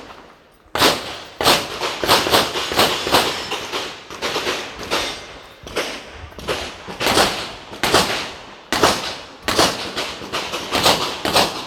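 Pistol shots fired in rapid strings during an IPSC handgun stage, several quick shots per group with short pauses between groups.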